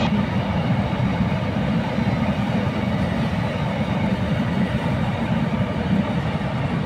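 BLCA container flat wagons of a freight train rolling past, a steady rumble of steel wheels on the rails.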